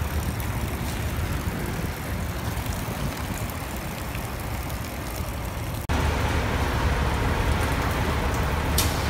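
Rain falling and floodwater swishing as a push broom sweeps leaves over a clogged storm drain, over a low rumble. About six seconds in it cuts abruptly to steady rain on wet pavement with a louder low rumble.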